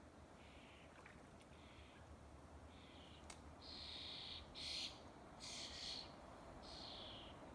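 Faint series of short, high-pitched bird calls, about one a second, loudest in the middle, with the last call falling in pitch.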